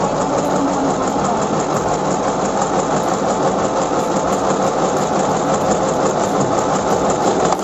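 Mini portable electric sewing machine running steadily, stitching through fabric, then stopping abruptly at the very end.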